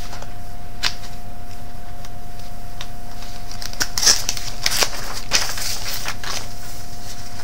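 Steady electrical hum with a constant whine, under faint scattered clicks and rustles, a small cluster of them about four to five seconds in.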